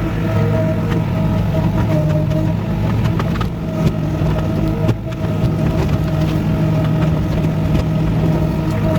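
A vehicle engine running steadily at a constant speed, with scattered knocks and rattles from the machine.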